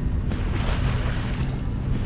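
Wind buffeting the microphone aboard a moving boat, a dense steady rumble with a faint, steady low hum running underneath.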